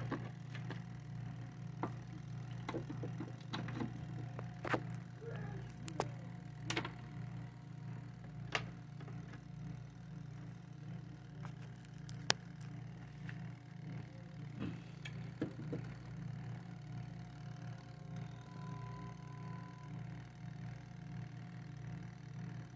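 Light clicks and taps of wires and small tools being handled on a workbench, most of them in the first fifteen seconds, over a steady low hum.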